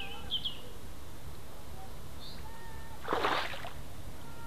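A Spomb bait rocket splashing down on the lake surface about three seconds in, one short splash. Birds chirp faintly around it.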